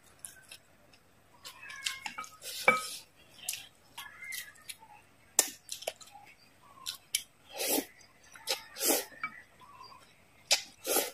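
Close-miked eating sounds: wet chewing and lip smacks, with a single ringing clink of chopsticks against the glass bowl. In the second half come three louder slurps as a mouthful of noodles is sucked in.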